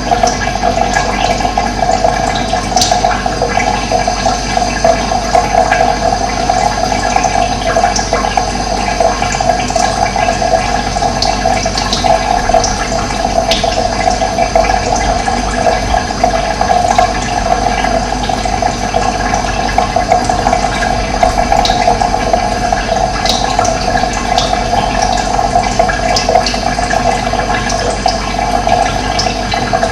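Steady rush of running water, with a few brief high bird chirps now and then.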